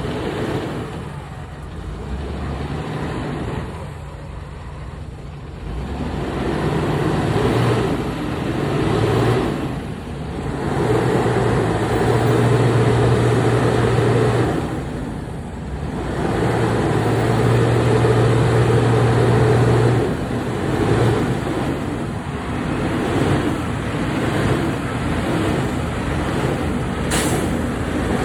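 Heavy diesel logging truck engine running under load, its sound swelling and easing several times as the revs rise and fall. There is a short hiss near the end.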